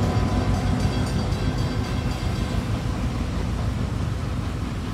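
Reading Blue Mountain & Northern 425 steam-hauled train pulling away past a grade crossing, a low rumble slowly fading as it recedes.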